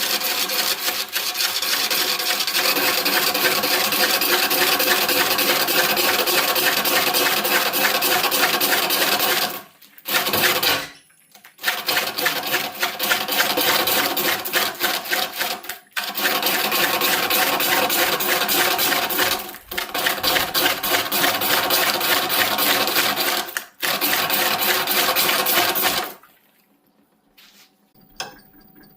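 A power tool abrading willow wood with a steady, dense rasping noise, breaking off briefly a few times and stopping a few seconds before the end.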